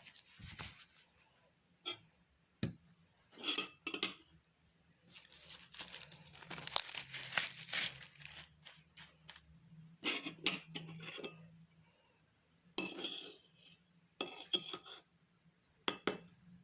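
A spoon scraping and clinking against a small bowl in irregular bursts, working a wet paste of baking soda and lemon juice.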